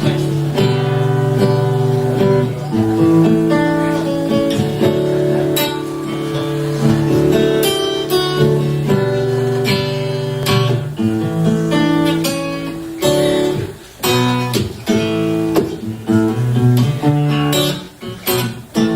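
Solo acoustic guitar strumming chords, the instrumental intro to a song with no singing yet.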